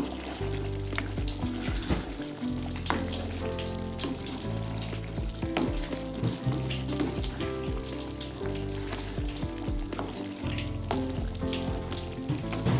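Beef rendang sizzling and frying in a pan as the coconut milk cooks down to oil, with occasional taps of a stirring spoon. Background music with sustained chords plays over it.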